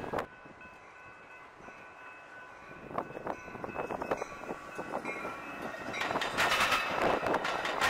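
A train coming up and passing on the tracks: a few wheel clicks about three seconds in, then the sound of wheels on rail grows loud from about six seconds in. Faint steady high tones sound throughout.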